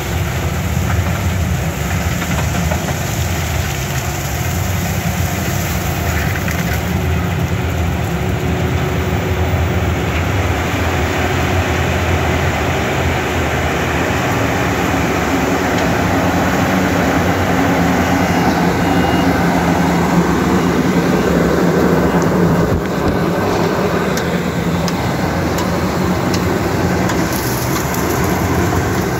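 Yanmar HS2000 sugarcane harvester working through standing cane: its 187 hp diesel engine runs steadily under load, mixed with the noise of the cutting and chopping gear. The sound stays loud and even, swelling slightly towards the middle.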